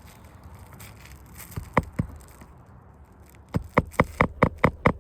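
Hammer driving a roofing nail into a replacement shingle: two light taps about two seconds in, then quick, even blows, about five a second, starting near the end.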